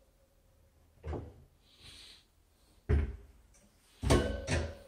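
A few short knocks and rattles as wire closet shelving and a cordless drill are handled and set against the wall.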